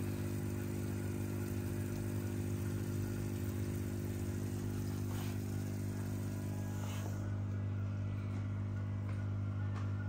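Aquarium pump humming steadily: a low, even electrical hum with overtones. A hiss above it drops away about seven seconds in.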